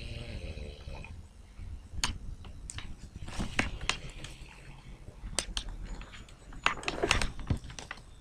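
A sleeping man's snore trails off about a second in, followed by scattered sharp clicks and knocks, several of them close together near the end.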